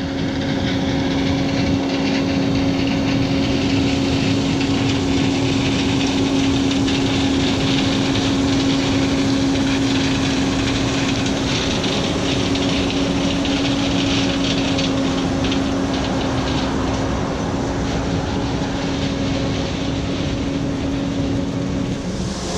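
Heavy farm machinery's diesel engine running steadily, with a constant droning tone over mechanical noise.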